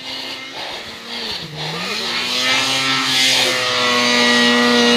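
Snowmobile engine running: its pitch drops briefly about a second and a half in, then climbs back and holds steady as the sound grows louder.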